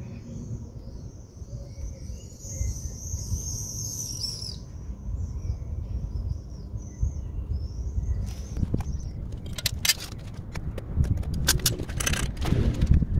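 Birds chirping and warbling high in the background over a low rumble. From about eight and a half seconds in, a run of sharp clanks and knocks as the hot crucible is lifted clear of the graphite molds with the lifter tongs, loudest near the end.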